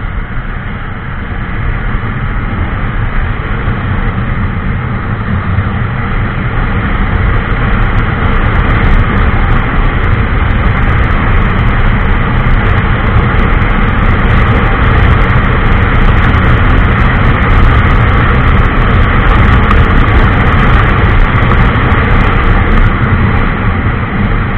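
Honda SP 125 motorcycle at full throttle on a top-speed run, its single-cylinder engine nearly buried under rushing wind noise on the microphone. The noise builds over the first several seconds as speed rises, then holds steady and loud, with wind crackle from about seven seconds in.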